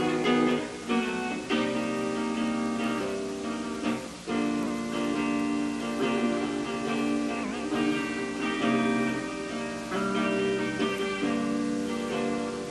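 Live band music led by guitar: ringing chords that change every second or so over a steady low note.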